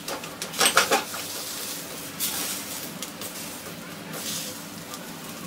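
Jowar roti on a hot tawa hissing in short sizzles as a wet cotton cloth is pressed over it, with a cluster of quick taps and scrapes about a second in.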